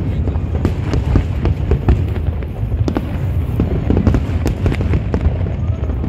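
Aerial fireworks shells bursting in rapid, overlapping succession: a dense run of bangs and crackles over a continuous low rumble.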